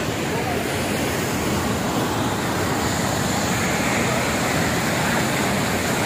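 Waterfall and white-water rapids: a loud, steady rush of falling, tumbling water.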